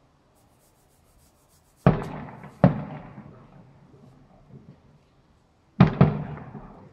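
Aerial firework shells bursting: two loud bangs less than a second apart, then after a pause two more in quick succession near the end, each followed by a rolling echo that fades.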